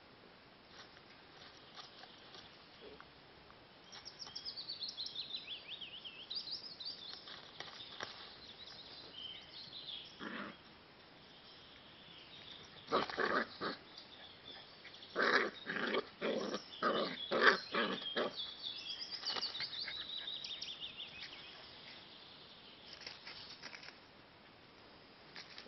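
Nine-week-old smooth fox terrier puppies yapping in play: a couple of short, sharp yaps about halfway through, then a quick run of them.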